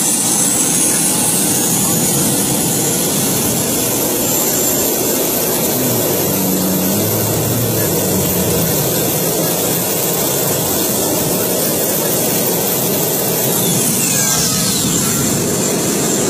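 A motorcycle's helicopter turbine engine running hard with a steady jet-like rush and whine while the bike does a burnout. A high whine falls in pitch near the end.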